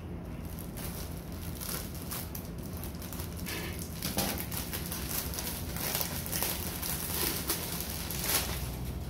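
Clear plastic wrapping around a bubble-wrapped parcel crinkling and crackling as it is cut with scissors and peeled away by hand, in a run of short irregular crackles that grows busier about halfway through.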